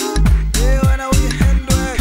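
Recorded pop music with a steady drum beat about two or three strokes a second, a heavy bass line and melody notes that slide down in pitch.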